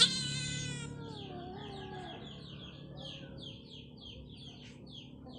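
A cat's loud, drawn-out meow that starts suddenly and falls and wavers in pitch, lasting about two seconds.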